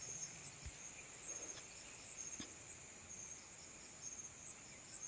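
Faint, steady high-pitched chirring of insects such as crickets in wet tropical vegetation, with a couple of soft low knocks.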